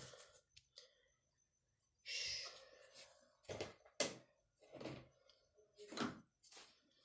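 Several faint knocks and taps of a small bottle and tools being handled and set down on a padded work table, with a brief rushing noise about two seconds in.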